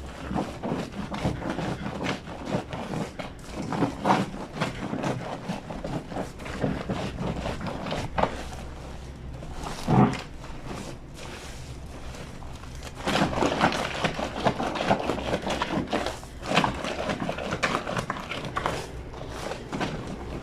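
A wet blanket being scrubbed and worked by hand on a granite washboard sink: irregular rubbing, swishing and squelching strokes, with one heavier slap about halfway through and busier scrubbing in the last third.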